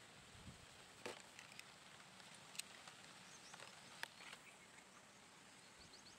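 Near silence with a few faint, sharp clicks, the last two about four seconds in, as hand pruning shears cut the top off a young mango rootstock stem.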